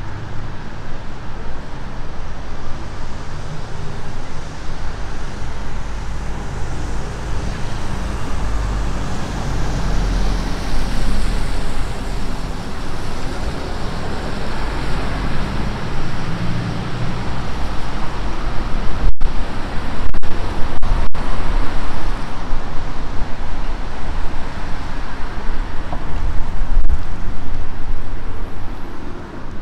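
Road traffic on a busy city street, with cars, a lorry and buses passing and wind buffeting the microphone in a heavy low rumble. The sound cuts out for an instant a few times about two-thirds of the way through.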